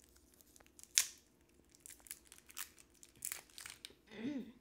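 Plastic packaging being crinkled and torn open by hand, in scattered rustles and snaps, the sharpest about a second in, with a brief pitched sound near the end.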